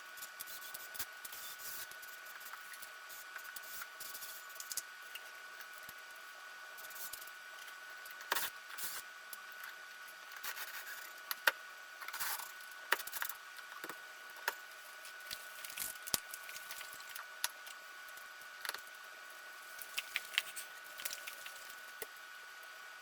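Scattered small clicks, taps and rustles of hands handling small objects, over a steady faint high-pitched whine.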